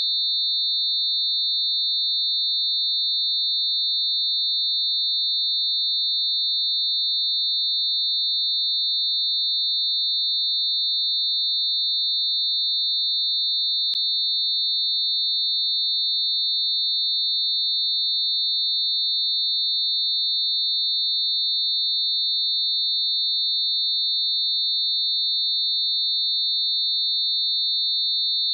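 Synthetic high-pitched steady tone: a few closely spaced pure sine tones mixed around 4 kHz, held unchanging. One faint click about halfway through.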